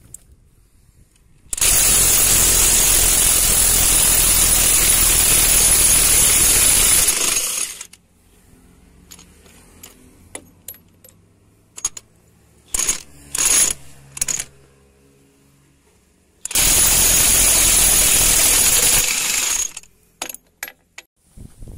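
DeWalt DCF897 3/4-inch cordless brushless impact wrench hammering on truck wheel nuts. It makes two long runs, about six seconds and about three seconds, with a few short trigger bursts and clicks between them.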